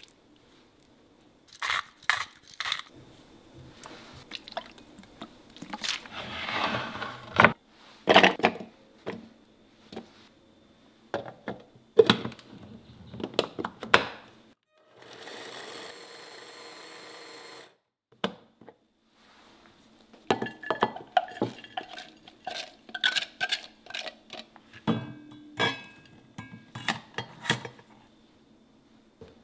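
Kitchen prep sounds: clicks and knocks of utensils against a ceramic dish, then an electric mini chopper running steadily for about two and a half seconds in the middle. After that come more clinks and scraping as a silicone spoon stirs corn and chopped vegetables in a ceramic dish.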